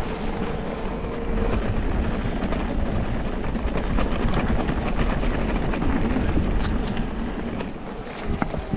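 Specialized Levo electric mountain bike ridden over a rough track: a steady low rumble of tyres and frame, with frequent short knocks and rattles. A faint steady hum comes in at the start and again near the end.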